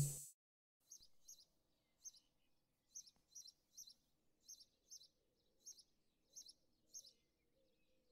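A small bird chirping faintly: short, high chirps repeated about every half second to a second, often in pairs, stopping about seven seconds in.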